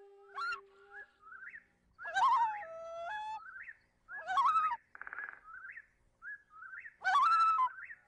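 Held flute notes stop about a second in, then birds call: short rising chirps about once a second, three louder whistled calls that bend in pitch, and a brief harsh buzzy call in the middle.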